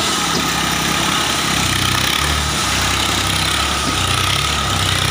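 Ford 3600 tractor's three-cylinder diesel engine running steadily as the tractor drives and turns, its engine note shifting briefly about two seconds in.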